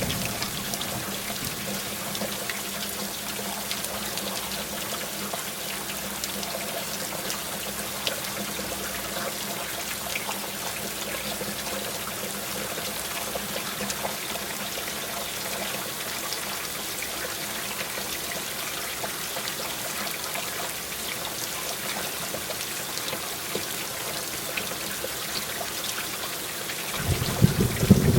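Steady heavy rain falling, an even hiss with scattered drop ticks and no thunder, until a thunder rumble starts to build just before the end.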